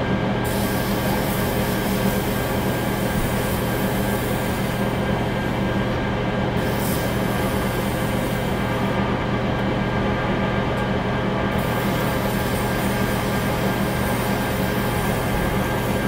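Small wood lathe running steadily with a constant hum, while sandpaper held by hand against the spinning wooden pen blank adds a rushing hiss that comes and goes as it is pressed on and eased off.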